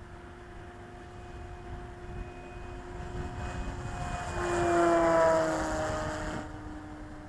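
Electric motor and propeller of an E-flite Cessna 150 radio-control model airplane flying past: a whine that grows louder to a peak about five seconds in, then drops in pitch and fades as the plane passes.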